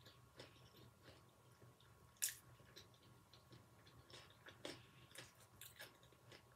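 Faint chewing of a bite of veggie sushi hand roll (seaweed wrap with rice, cucumber, carrot and avocado): scattered soft mouth clicks, with one sharper click about two seconds in.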